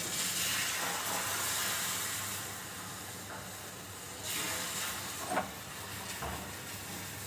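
Besan batter sizzling as it is ladled onto a hot, oiled iron tawa. The sizzle starts suddenly, fades over a few seconds and flares again about four seconds in, with a short clink about five seconds in.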